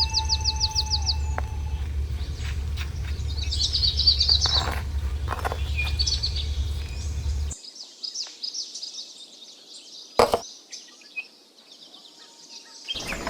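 Small birds chirping and trilling, with scattered light taps and clicks. A low hum cuts off abruptly about halfway through, and a single sharp knock comes about ten seconds in.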